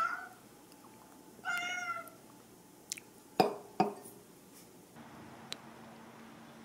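A cat meows twice, two drawn-out calls about a second and a half apart. Then a ceramic teacup clinks twice against its saucer as it is set down.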